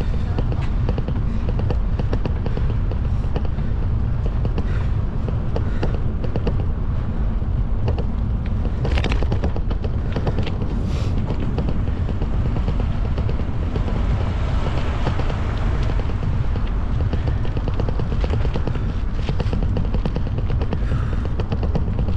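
Steady low rumble of a moving vehicle with wind buffeting the microphone, and a couple of brief louder hissing swells about nine and eleven seconds in.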